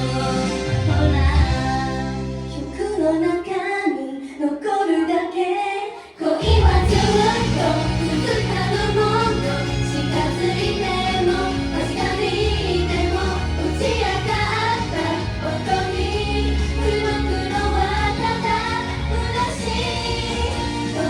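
Japanese pop song sung by female vocals over a band backing. The bass and drums drop out for a few seconds, leaving the voices over lighter accompaniment, then the full backing comes back in about six seconds in.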